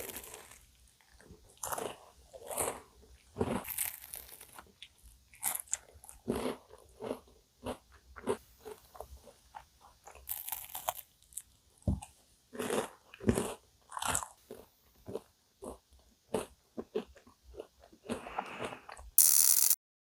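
Close-up eating sounds of cookie choux cream puffs: crisp bites into the crunchy cookie crust followed by chewing, in irregular bursts. A brief, loud burst of noise comes just before the end.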